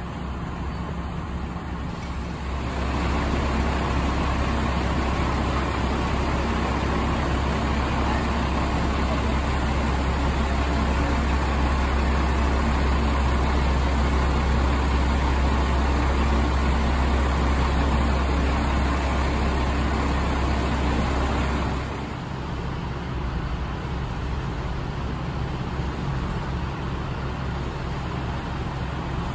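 Hojo Railway diesel railcar engines running with a steady low hum. The sound steps up louder about two and a half seconds in and drops back about twenty-two seconds in.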